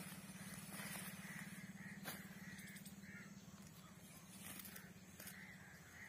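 Faint outdoor sound of hand-cutting leafy fodder: a few sharp snicks as the stalks are cut near the ground, over a bird calling with short repeated notes and a steady low hum.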